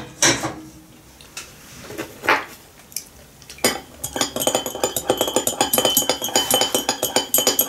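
A metal kettle set down on a gas stove with a clank or two, a few light clicks, then a teaspoon stirring in a glass mug: a rapid run of clinks against the glass with a ringing note, from about four seconds in to near the end.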